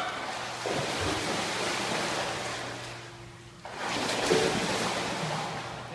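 Pool water splashing and sloshing as a dog swims through it, with a short lull about three seconds in.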